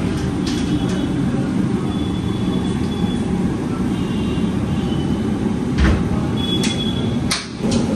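Steady low roar of the burner under a large aluminium steamer, with a heavy thump and then two sharper metal knocks about six to seven seconds in as a steamer section is set in place.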